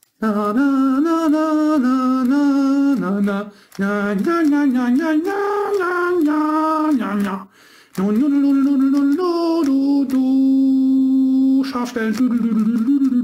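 A man singing a wordless tune, holding notes that step up and down in three phrases with short breaks, including one long held note near the end.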